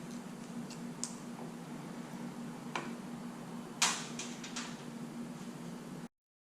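A few sharp light clicks and taps over a steady low hum, the loudest click a little under four seconds in followed by a quick run of lighter ones. The sound cuts off abruptly about six seconds in.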